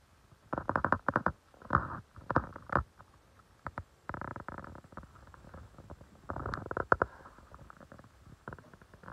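Domestic cat grooming itself close up, its tongue licking over its fur in quick runs of strokes, several bursts with short pauses between.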